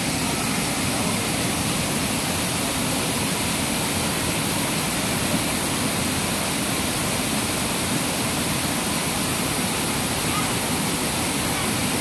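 Waterfall cascading over boulders into a rock pool: a steady rush of falling water.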